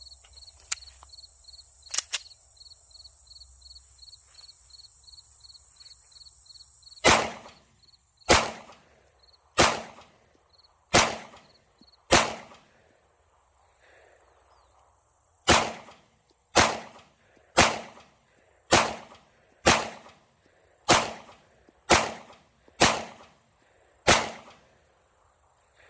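Sig Sauer P365 FUSE 9mm pistol fired fourteen times, starting about seven seconds in: five shots about a second apart, a pause of about three seconds, then nine more at about one a second.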